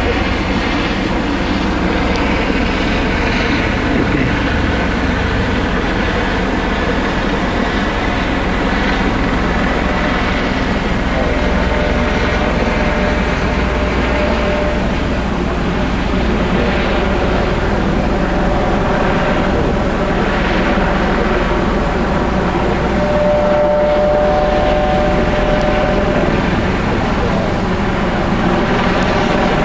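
Police helicopter circling overhead: a steady, loud drone of rotor and engine, with a thin steady whine that comes and goes partway through.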